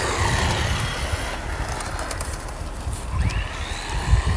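The 350 W hoverboard hub motors of a hoverboard-wheeled RC car, driving over grass, give a faint electric whine that glides up and down in pitch with speed. A low rumble, typical of wind on the microphone, runs under it and is the loudest thing heard.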